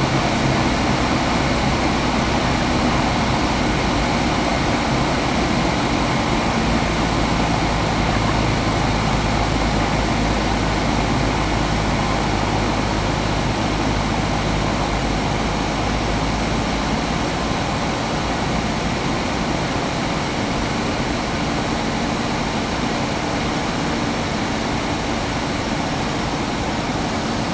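Cessna 172 Skyhawk's piston engine and propeller droning steadily in cruise, heard from inside the cockpit with the rush of air over the cabin.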